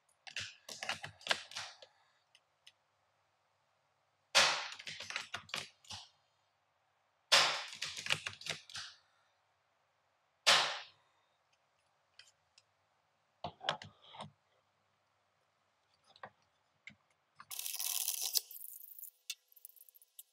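Airsoft Steyr Scout bolt-action rifle, fitted with a foam-filled over-barrel suppressor, fired three times about three seconds apart: each shot a sharp crack, with clicking and clacking of the bolt being worked between shots. A short rustle of handling near the end.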